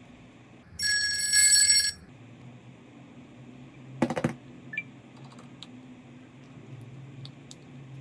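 A phone ringing: a warbling electronic ring of several high tones, about a second long. About two seconds later comes a single sharp knock, then a few faint clicks.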